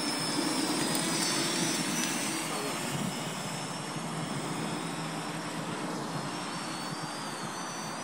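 Parrot Anafi quadcopter's motors and propellers running: a steady whirring hiss with a thin high whine that wavers up and down in pitch as the motor speed shifts.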